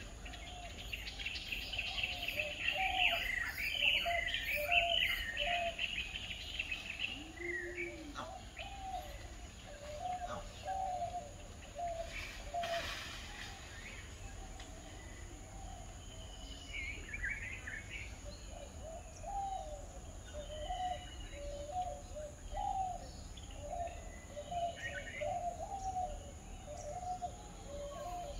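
Wild birds calling in the tree canopy: a steady series of short, low calls repeated about twice a second, with a busy burst of high chirping over the first few seconds and scattered chirps after.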